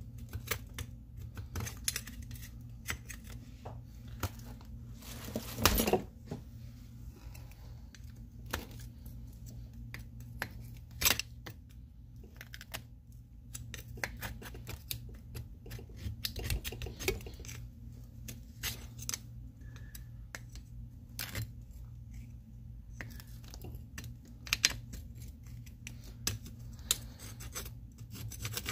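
Hand cleaning of an old GE bench grinder's housing: irregular scraping and scratching, with scattered clicks and taps of a tool against it.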